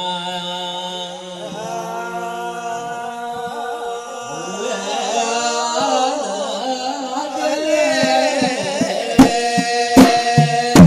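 Men's voices chanting a melody in long held and sliding notes, unaccompanied at first. About nine seconds in, a few sharp beats on hand drums come in and are the loudest sounds.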